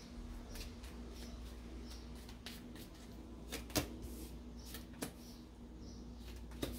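Tarot cards being drawn from the deck and laid on a table: a handful of light taps and slides, the sharpest a little before four seconds in.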